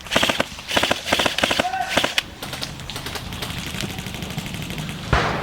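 Airsoft guns firing on full auto: a clatter of rapid shots over the first two seconds, then a steady, faster stream of shots, with a single thump near the end.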